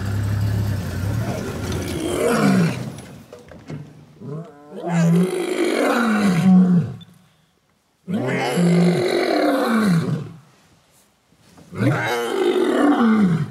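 Loud roaring and growling vocalisations in four bouts of two to three seconds each, with short silent gaps between them.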